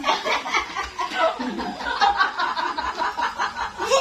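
Several children and teenagers laughing and giggling together, with overlapping chatter.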